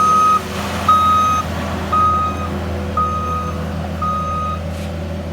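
Backup alarm on a Case SR240 turbo-diesel skid steer beeping about once a second, five single-pitch beeps that stop about four and a half seconds in. Under the beeps is the steady sound of the diesel engine running.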